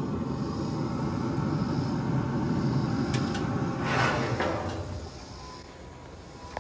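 Open pellet grill with its fan running, a steady whir with a low hum, and a brief clatter about four seconds in as a slab of ribs is set on the steel grate. The whir drops away after about five seconds, and a sharp click comes near the end.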